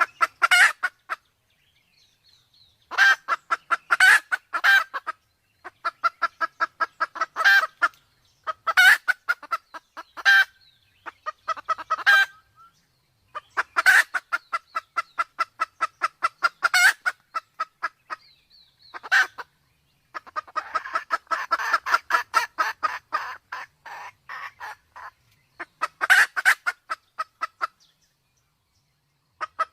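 Sumatran red junglefowl clucking in fast runs of repeated clucks, each run lasting a second or a few, with short pauses between them. These are the calls of a hen in breeding condition, mixed with a cock's, as used to lure wild junglefowl.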